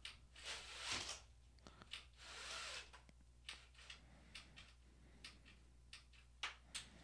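Faint rustling and a few scattered light clicks from a window blind being adjusted by hand.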